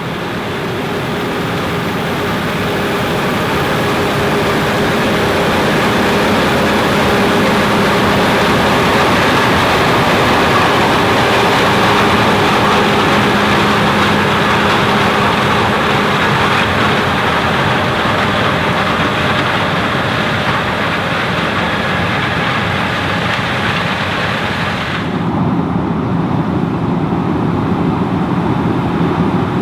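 Fendt Ideal 9T combine running under load while harvesting corn with a 12-row Geringhoff corn head. It is a loud, steady machine noise with a few steady tones in it, growing louder over the first few seconds. About 25 seconds in it changes suddenly to a duller, lower sound with the high end gone.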